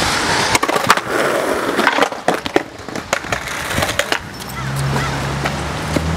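Skateboard on wet asphalt, clattering and knocking against the pavement in a string of sharp knocks during the first couple of seconds. A low steady hum comes in about four and a half seconds in.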